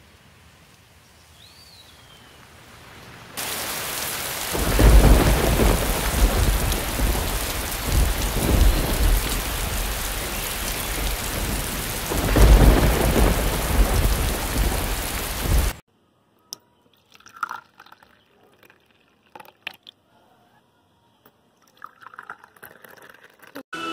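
Heavy rain that comes in suddenly a few seconds in, with two loud rumbles of thunder, then cuts off abruptly; afterwards only a few faint scattered clicks.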